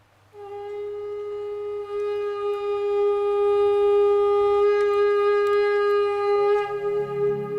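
Conch shell (shankh) blown in one long, steady note that starts about half a second in, grows louder about two seconds in and is held for about six seconds, sounded to open the ceremonial lamp lighting. Music comes in underneath near the end.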